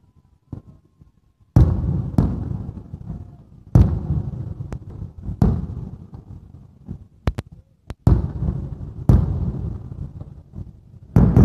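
Aerial fireworks shells bursting: after a quiet second and a half, a series of sharp bangs, each trailing off in a long low echo, with a quick cluster of cracks in the middle.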